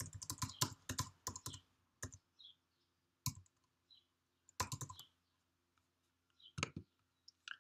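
Typing on a computer keyboard: a quick run of keystrokes in the first second and a half, then scattered single taps and short clusters.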